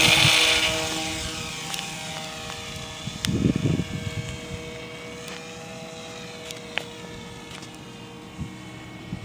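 Whine of a small electric RC airplane's Turnigy brushless motor and 7.5-inch propeller at a steady high pitch. It is loudest at the start and fades as the plane draws away. A brief low rumble comes about three and a half seconds in.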